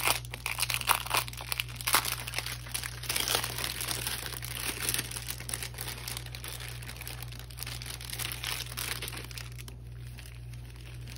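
Small clear plastic baggies of diamond-painting drills crinkling as they are handled, busiest in the first half and dying down near the end.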